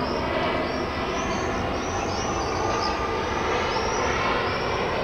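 Jet engines of an airliner on landing approach: a steady drone with a layer of faint whining tones, holding even throughout.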